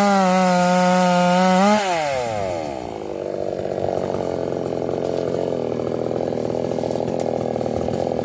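Toyama TCS58H two-stroke chainsaw running at high revs, then the throttle is released about two seconds in and the engine note falls quickly to a lower, rough idle that carries on steadily.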